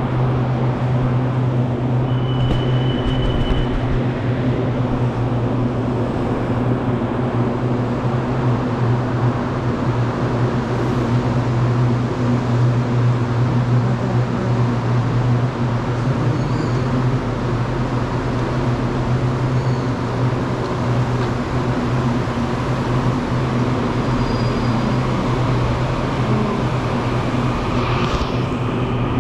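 Stationary electric commuter train at the platform, its onboard equipment giving a steady low hum. A brief high beep sounds about two and a half seconds in.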